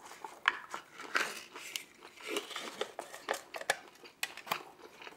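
Close-miked eating sounds: a person chewing food, with irregular wet smacks and clicks from the mouth several times a second.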